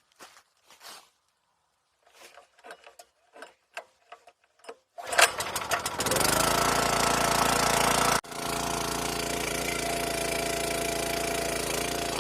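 A few handling knocks and clicks, then a motor starts about five seconds in, spins up with a rising pitch and runs steadily, with a brief break near the middle.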